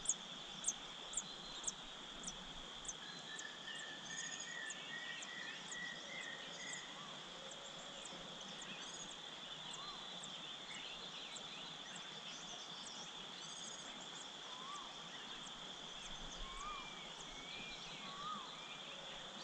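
A steady high insect drone with bird calls over it. A run of sharp, high chirps about twice a second fades out in the first few seconds, a short trill follows, and scattered short calls come later.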